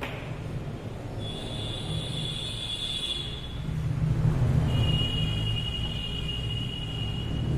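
A steady low rumble that swells about halfway through, with two long, steady high whistling tones over it, each lasting about two to three seconds.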